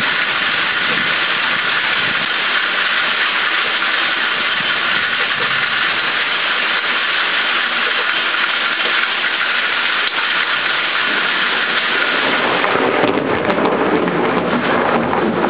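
Heavy rain falling steadily with a constant hiss. About twelve seconds in, a deeper rumble of thunder swells underneath it.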